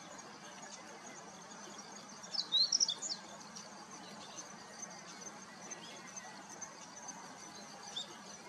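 Meadow bunting singing a short burst of quick, high notes about two to three seconds in, over a faint steady high hiss.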